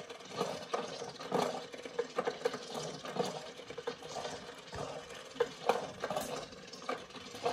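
Irregular light taps and rattles of kittens playing with plastic cat toys.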